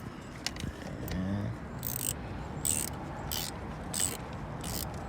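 Ratchet wrench being worked in short strokes, a rasping click about every 0.7 s, tightening a car battery terminal clamp.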